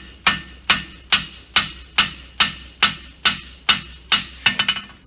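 Farrier's hammer striking a hot steel horseshoe branch on the anvil at an even pace of about two and a half blows a second, each blow ringing briefly: bumping (upsetting) the inside of the branch while forging a bar shoe. A few quicker, lighter taps come near the end.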